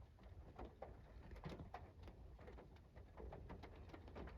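Faint raindrops ticking irregularly against a window, scattered single drops over a low steady hum.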